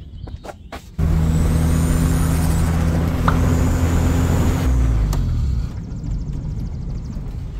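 A Honda Integra's engine comes on suddenly about a second in and runs at a steady fast idle. About four and a half seconds in the revs fall, and it settles to a quieter, lower idle.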